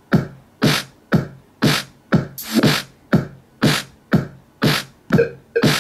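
Electronic drum-machine beat from the Korg iKaossilator app on a smartphone, played through a cheero SOUND GARDEN portable speaker over its line-in cable. A steady pattern of about two hits a second, with extra hits and a few pitched notes added near the end.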